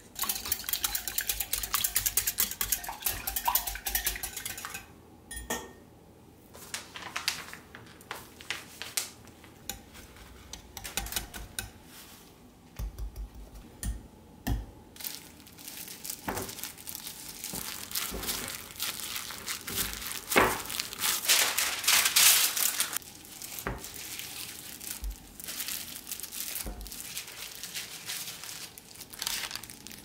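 Wire whisk beating and scraping in a ceramic mixing bowl in quick strokes, with the crinkle of a plastic glove working crumbly dough. The busiest stretches are at the start and again a little past the middle.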